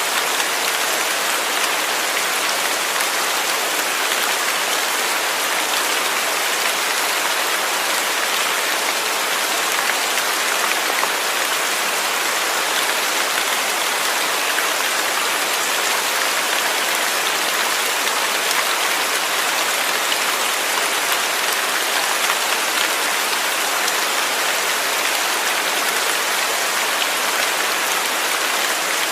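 Steady rain falling, an even hiss with fine drops pattering throughout.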